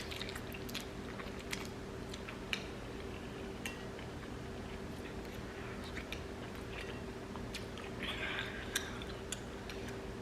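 Close-miked chewing and wet mouth smacking of someone eating soft noodles: scattered sharp clicks, with a brief breathy hiss about eight seconds in, over a faint steady hum.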